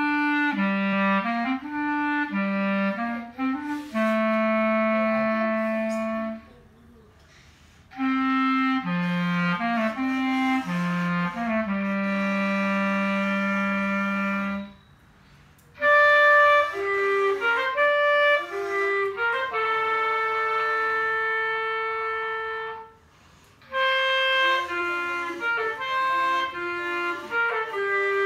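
Clarinet played by a young learner, a melody in four phrases with short breaks between them. The first two phrases sit low, the last two about an octave higher, and each ends on a long held note.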